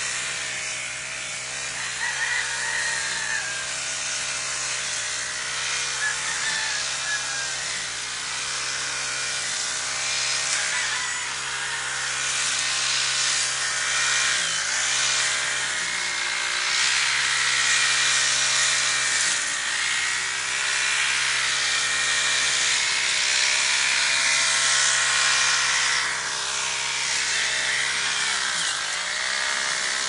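A small motor or engine running steadily, its pitch wavering a little and dipping briefly twice, about halfway through and near the end, over a steady hiss.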